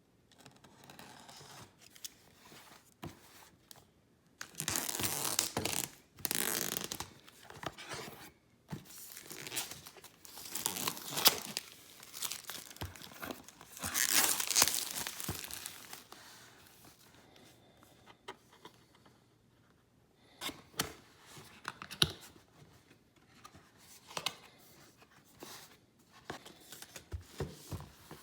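Packaging being torn open and crinkled: three loud ripping stretches of a couple of seconds each in the first half, then quieter rustling with a few sharp clicks.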